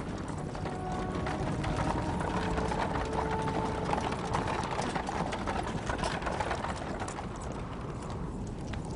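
Horse hooves clip-clopping at a steady walk as a horse draws a chariot.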